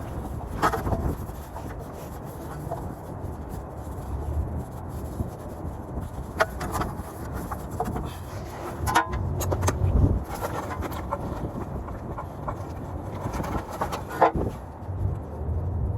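Wind buffeting the microphone as a steady low rumble, with a few scattered knocks and clanks.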